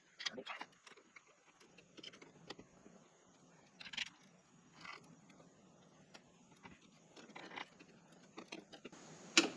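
Sparse small clicks, taps and scrapes as the interior assembly of a keyless deadbolt is handled and fitted against a door, with a sharper knock near the end.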